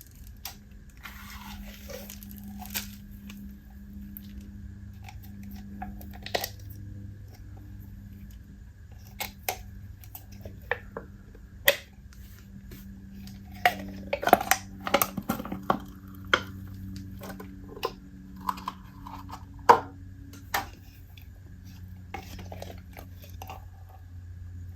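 Hands squishing and stretching Compound Kings Galaxy Dotz slime, a wet, jiggly slime mixed with foam beads, making scattered sticky pops and crackles that cluster most densely about halfway through. A steady low hum runs underneath.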